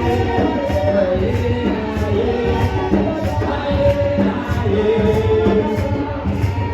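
Gospel chorus sung with music, and a tambourine keeping a steady beat about twice a second.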